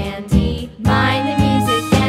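Upbeat children's background music with a steady beat and bright melody notes.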